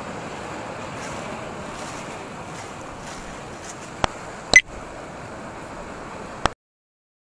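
Steady wash of sea surf and wind, broken by a few sharp clicks, the loudest about four and a half seconds in. The sound cuts off suddenly about six and a half seconds in.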